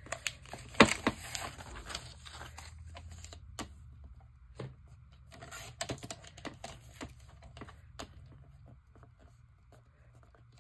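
Magazine paper being handled and shifted on a plastic paper trimmer: rustling with scattered light clicks and taps, the sharpest tap about a second in, thinning out toward the end.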